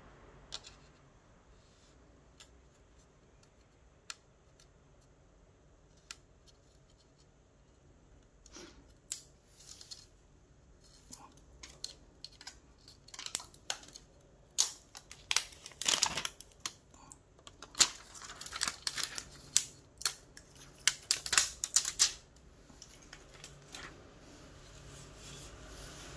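Unboxing handling noise from packaging: a few scattered sharp clicks, then a busy stretch of crackling, clicking handling from about nine seconds in until near the end.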